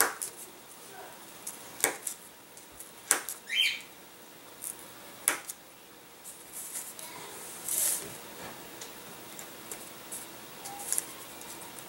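Scattered light clicks and taps with a short scratchy scrape about eight seconds in, as small laser-cut wooden model-airplane parts are handled and worked by hand. A brief rising chirp sounds about three and a half seconds in.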